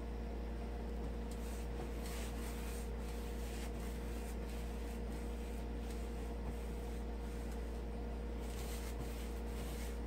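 Paintbrush dragged over a textured wall in repeated strokes, a faint scratchy rub of bristles with each stroke, over a steady low hum.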